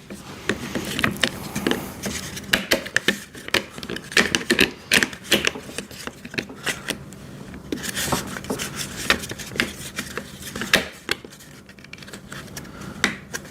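Hubcap covers being fitted onto the wheels of an electric wood chipper: irregular clicks, taps and scrapes of parts being handled and pressed into place.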